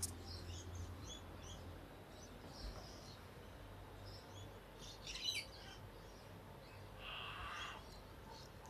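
Faint, scattered short high chirps, with a quick cluster of chirps about five seconds in and a longer buzzy call near the end. The uploader takes the calls for an unknown frog.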